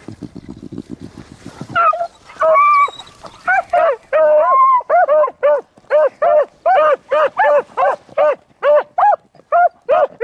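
Beagles baying on a rabbit's trail, starting about two seconds in: a run of short, rapid barks about two to three a second, mixed with a few longer drawn-out bawls near the start.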